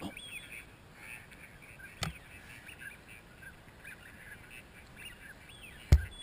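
Ducks quacking in many short, repeated calls. Two sharp bangs cut across them, a lighter one about two seconds in and a much louder one near the end.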